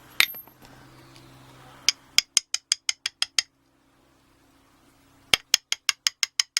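A sharp metallic click, then two quick runs of small, evenly spaced metallic ticks, about six a second, the second run starting a little past halfway.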